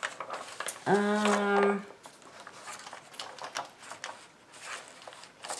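A woman's voice briefly hums a held 'mmm' for about a second. After that come faint scattered light clicks and crinkles from a plastic sheet of stick-on gemstones being handled.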